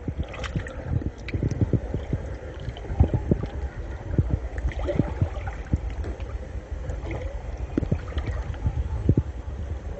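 Water sloshing and splashing close to the microphone, with irregular short knocks over a low rumble.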